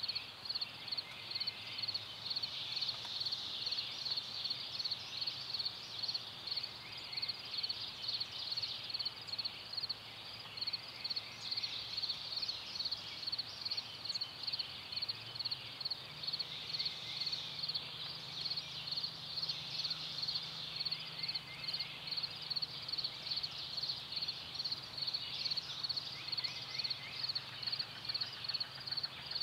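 Quiet spring field ambience: a high-pitched call repeating evenly about twice a second, with a few fainter calls and, from about halfway, a faint low hum.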